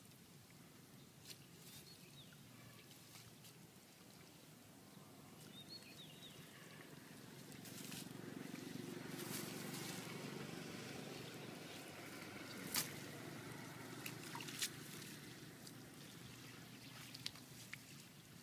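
Faint sloshing and dripping of water as a wet cast net is lifted and gathered in shallow muddy water, with a few sharp clicks, the loudest about two-thirds of the way through.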